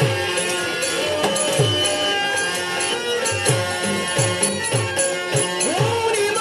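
Instrumental passage of a Ganesh devotional song: a hand drum plays deep strokes that slide down in pitch, with jingling percussion and sustained melodic tones over a steady rhythm.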